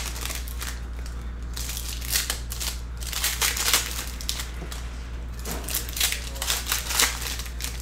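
Foil wrappers of Panini Certified football card packs crinkling as the packs are torn open and the cards slid out, in irregular rustles and crinkles.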